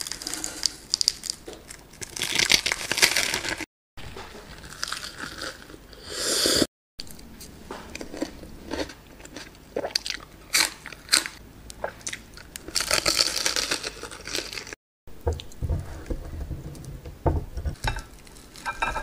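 Close-miked eating sounds in several short clips separated by brief silences: crunchy biting and chewing of breaded fried chicken drumsticks and raw green onion. Near the end come wetter, duller sounds as a drumstick is dipped into thick cheddar cheese sauce.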